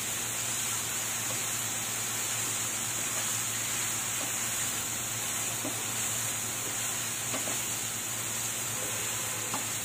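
Tofu sizzling in a thick masala in a nonstick frying pan, a steady hiss, while a wooden spatula stirs it, with a few faint scrapes and taps against the pan.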